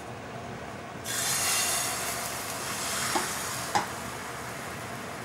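Beaten egg ladled into a hot, lightly oiled nonstick frying pan: about a second in, it starts to sizzle with a sudden hiss that slowly eases. The ladle clicks lightly against the pan twice near the middle.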